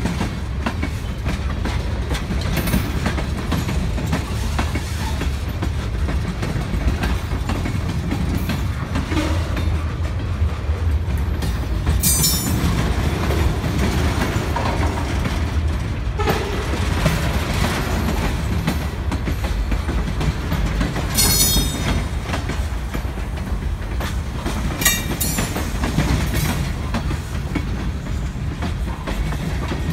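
Freight cars, tank cars and covered hoppers, rolling past close by: a steady rumble of steel wheels on rail with clickety-clack over the rail joints. A few short, high metallic squeals cut through, about 12 and 21 seconds in and again near 25 seconds.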